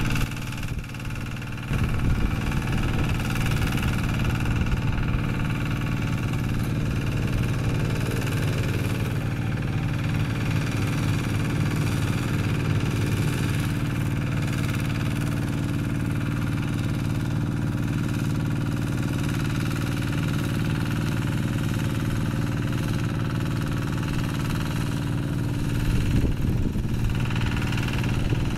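Kubota RD110Di-2T single-cylinder diesel of a two-wheel hand tractor running steadily under load, a fast, even chugging beat, slightly louder near the end.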